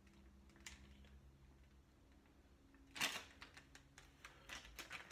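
Handling noise close to the microphone: a loud crackling rustle about three seconds in, then a run of small clicks and crackles and another rustle near the end, over faint room hum.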